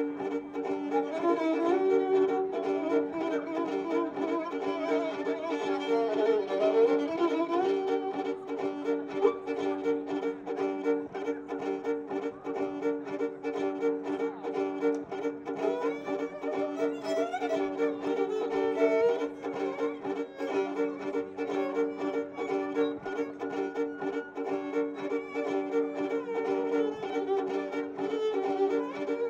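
Violin playing a Balkan-style tune over a steady, held accompaniment from a loop station, which keeps sounding while the live bowing pauses; the music draws on traditional Romanian and Roma themes.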